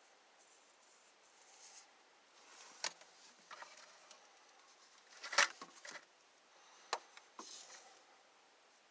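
A few light clicks and taps of small objects being handled, the loudest a little past halfway, with some faint rubbing between them.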